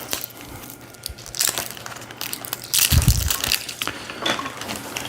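Plastic toy parts and packaging being handled: irregular crinkling, crunching and clicking, with a heavier knock about three seconds in.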